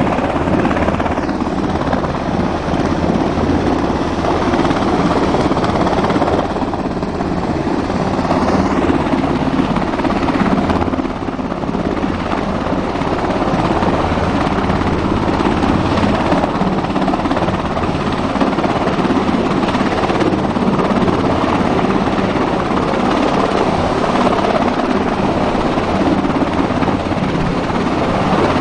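US Coast Guard MH-60 Jayhawk helicopter hovering low over water, its rotor and engines running steadily.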